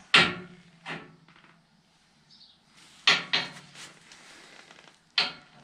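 Sharp clunks of a steel hydraulic pipe being handled and bent: two near the start, two in quick succession about three seconds in, and one near the end.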